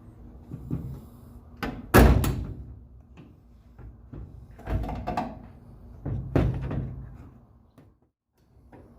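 Several hard plastic knocks and clunks as the tail light housing of a 2010 Ford F150 pickup is worked loose and pulled out of the bed side. The loudest comes about two seconds in, with more near the middle.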